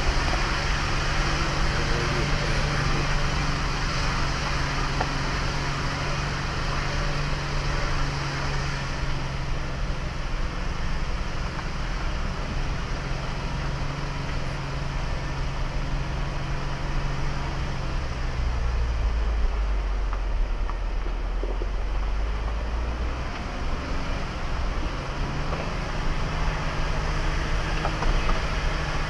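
Vehicle engine running steadily on a slow drive down a gravel mountain road, under a constant hiss of tyres on gravel and wind. About two-thirds of the way through, the engine note drops lower for several seconds, then rises back.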